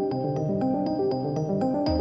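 Background music: a melody of short, evenly paced notes, about four a second, over held tones. Near the end a crash and deep bass come in.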